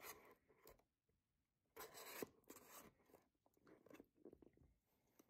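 Faint scraping and rubbing of hands and a small tool against a cardboard mailer box as it is opened, in several short bouts.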